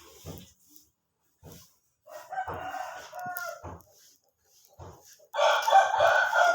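A rooster crowing twice, the second crow louder.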